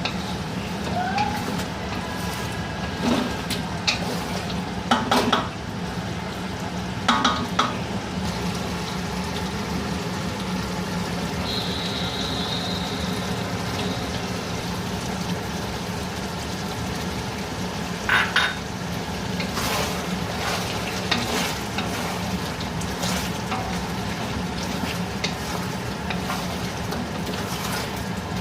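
Food frying in a pan with a steady sizzle, while a utensil stirs and scrapes it, knocking against the pan every few seconds.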